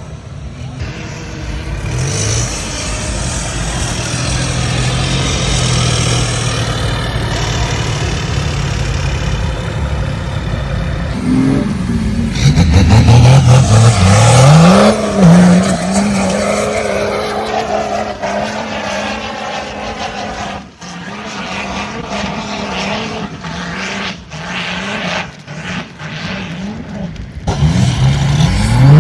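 Off-road vehicle engine running hard and revving repeatedly, its pitch rising and falling in several pulls in the middle and again near the end.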